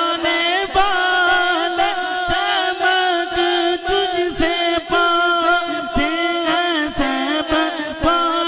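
A man's voice singing an Urdu naat into a handheld microphone: a long melismatic passage without clear words, with held notes broken by quick ornamented turns.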